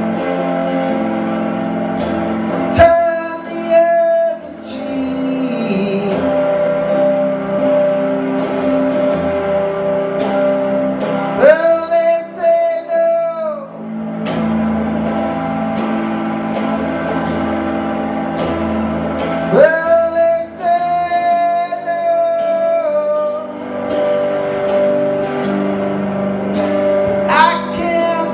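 Live song: a man singing long held notes in four phrases about eight seconds apart, over steadily ringing guitar chords.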